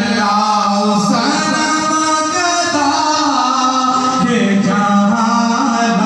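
A man's unaccompanied devotional chanting into a microphone: one voice holding long, ornamented melodic notes that slide from pitch to pitch.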